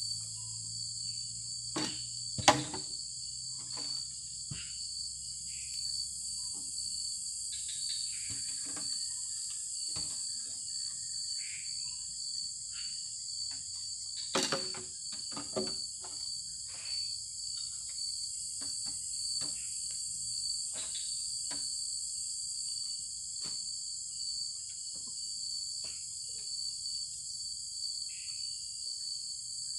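Forest insect chorus, a steady high-pitched buzzing and trilling, with scattered sharp clicks and knocks: the loudest about two and a half seconds in, and a cluster around the middle.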